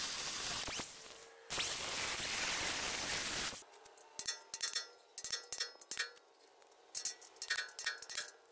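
Angle grinder grinding the heads off steel frame rivets, with a short break about a second in, stopping about three and a half seconds in. Then a run of ringing metal-on-metal strikes in quick clusters: a punch being hammered to drive the cut rivets out of the frame.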